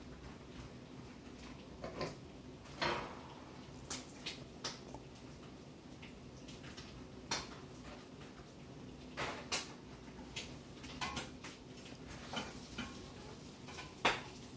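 Scattered sharp clicks and light clinks, a dozen or so at uneven intervals and loudest near the end, over a steady low hum in a small room.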